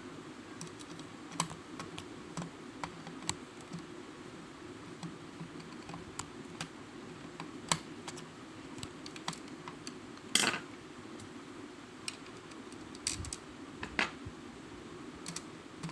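Small screwdriver turning screws into a perforated metal robotics-kit plate: scattered light metallic clicks and scrapes, with a louder clatter about ten seconds in.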